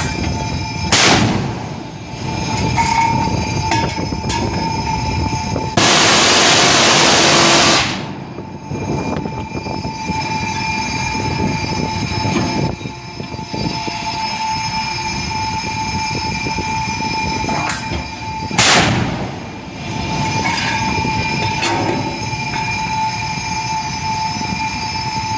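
A Mk 45 5-inch naval gun fires two single rounds, the first about a second in and the second some eighteen seconds later. A steady drone with a constant tone from the ship's machinery runs underneath. About six seconds in, a loud rushing noise lasts about two seconds.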